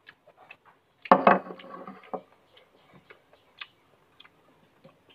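Eating sounds: a metal fork making light, scattered clicks against a porcelain bowl of crisp fried mushrooms. About a second in there is a louder, brief pitched sound lasting about a second.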